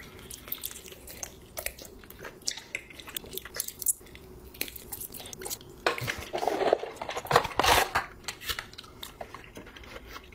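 A person biting into and chewing a giant gummy bear close to the microphone: a string of short mouth clicks and smacks, louder between about six and eight seconds in.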